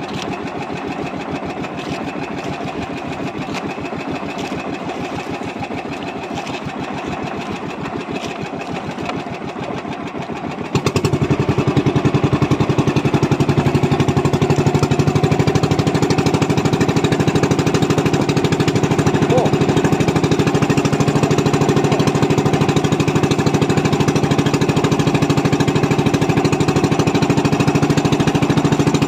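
Small fishing boat's engine running with a fast, even knock; about eleven seconds in it suddenly becomes louder and stays at the higher level.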